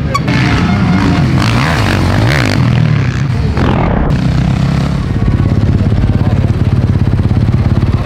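Motocross bike engines revving, the pitch rising and falling. From about five seconds in, one engine runs at a steady, fast, even beat.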